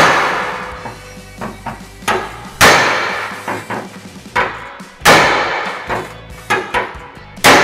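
Hammer blows on a chisel held against the sheet-steel flange of a 1940 Willys hood, popping out a crinkled spot. There are four sharp strikes about two and a half seconds apart, each ringing out, with lighter taps between them.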